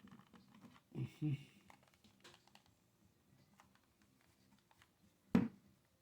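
Plastic PS4 controller shell being twisted and pried by hand: scattered light clicks and taps, with a sharp louder knock near the end.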